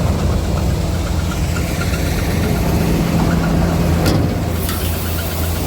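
Diesel engine of the harvest machinery running steadily at constant speed, with a faint light ticking above it and one short click about four seconds in.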